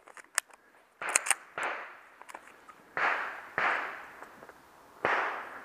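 A few sharp metallic clicks of pistol handling, then gunshots fired in pairs about half a second apart, three pairs in all, each shot with a long echoing tail. They are quieter than a shot from the pistol in hand, as from a neighbouring range bay.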